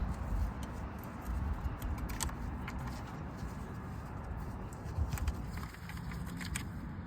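Scattered light clicks and knocks of hoses, lines and plastic connectors being pulled loose and moved aside on a car engine, over a steady low rumble.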